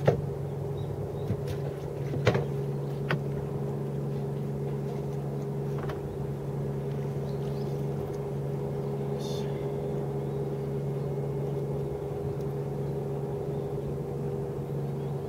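Boat engine running steadily at a constant low hum, with a few sharp knocks in the first few seconds.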